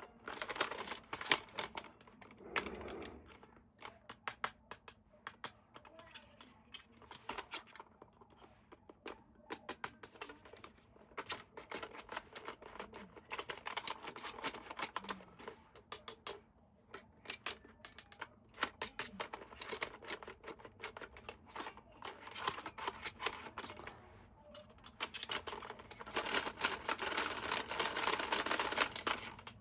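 Toy packaging being handled and opened: a dense, irregular run of small clicks and crinkles, busier near the end.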